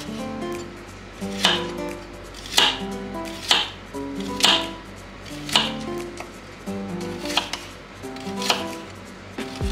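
A kitchen knife slicing through a red onion and striking a wooden cutting board, one crisp cut roughly every second, over background music.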